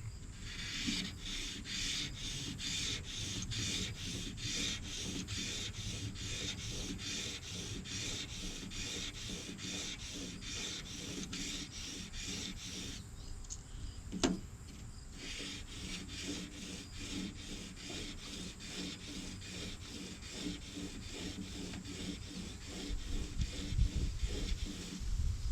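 Broadhead blade in a sharpening guide being rubbed back and forth on 1000-grit sandpaper laid over plexiglass, in a steady run of quick, even strokes. About halfway through there is a short pause with a single click, and then the strokes go on.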